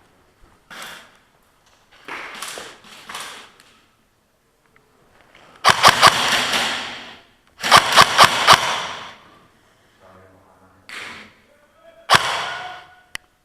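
Airsoft guns firing short bursts in a reverberant indoor space. The two loudest bursts come about six and eight seconds in, each a quick run of sharp cracks that rings on for a second or so, with fainter shots around them.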